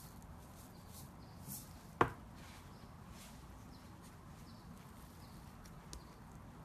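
A single sharp tap about two seconds in, from the glitter jar and slime tub being handled, with a faint click near the end, over a low steady hum.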